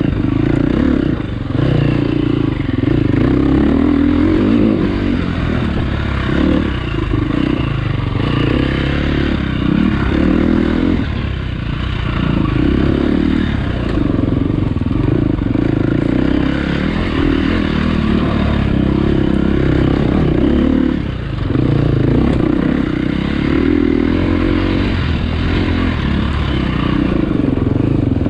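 Dirt bike engine revving up and falling off again and again as it is ridden round a track, with brief drops in the revs a few times.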